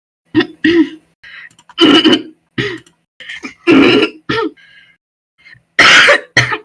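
A young woman clearing her throat hard and coughing in a run of short, harsh bursts, the loudest about two, four and six seconds in: a smoker's barking cough.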